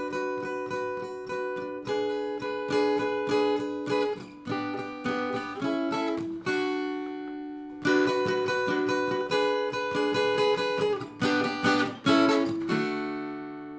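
Acoustic guitar strumming the high-voiced chord passage on the top three strings: a barred 7th-fret shape with a finger added at the 9th fret, then the tops of G, A and D chords. The passage is played through twice.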